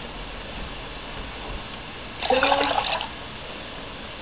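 Water running and splashing steadily as a small saucepan is filled with water a measuring cup at a time.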